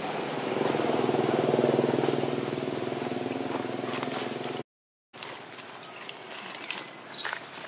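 A motor vehicle's engine running steadily, growing louder about a second in, then easing off, and cutting off abruptly. After that come a few light clicks and rustles.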